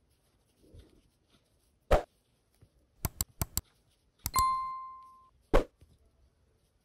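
Subscribe-button animation sound effect: a mouse-style click, a quick run of clicks, then a bright single-tone notification-bell ding that rings and fades over about a second, and one last click.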